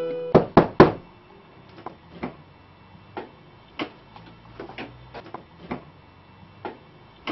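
Three quick sharp knocks, then a string of soft, irregular taps and clicks of objects being handled on a wooden desk.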